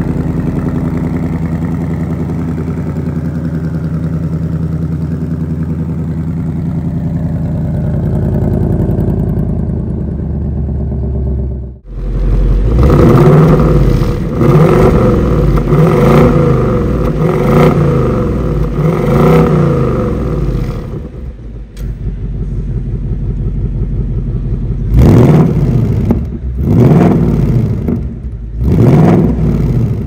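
2024 Ford Mustang GT's 5.0-litre Coyote V8 running at a steady idle, then revved in a series of quick blips, each rising and dropping back. It settles to idle briefly, then a few more sharp revs near the end.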